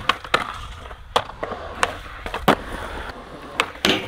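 Skateboard wheels rolling on concrete, with a series of sharp clacks as the board hits the ground and grinds a ledge and a metal rail. The loudest hit comes near the end and rings briefly.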